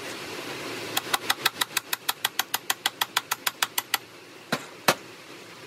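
Quick, light taps of a brass rod on the faceplate of a Logan 200 lathe headstock, about six a second for three seconds, then two harder single taps, knocking the plate loose.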